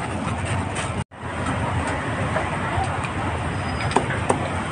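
Busy street ambience: steady traffic noise mixed with background voices and scattered clicks and clatter. The sound cuts out completely for a moment about a second in, then resumes.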